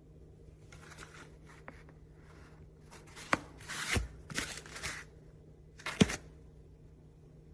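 Stiff paper plates being handled, rustling and sliding against each other in bursts, with two sharp knocks, the louder one near the end.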